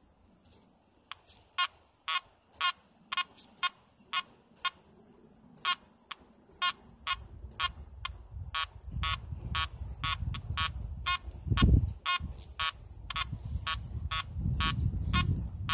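Makro Multi Kruzer metal detector in deep mode sounding a long series of short target beeps, about two a second, as the coil sweeps back and forth over a buried target. Through the second half a low rumble from the microphone underlies the beeps, with one thump about two-thirds of the way through.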